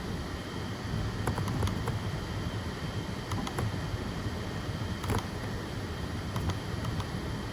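FDM 3D printer running a print in wood-filled PLA: a steady hum of fans and motors with thin high steady tones, and a few light clicks scattered through it.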